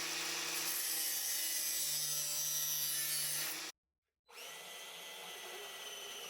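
A power tool running steadily through a cut or grind, with a low hum under a hiss of noise. It stops abruptly a little over halfway through, and after a short silence a second, quieter stretch of the same kind of running starts.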